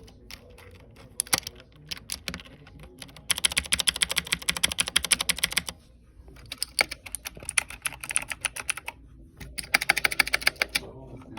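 Typing on a Razer BlackWidow V3 mechanical keyboard with clicky green switches: a few scattered key clicks, then three bursts of rapid clicking.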